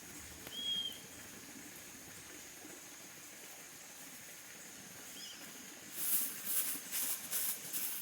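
A pot of hot oil sizzling over a wood fire, in loud pulsing bursts of hiss from about six seconds in. Before that there is a faint background with a short, high, whistled bird chirp about half a second in.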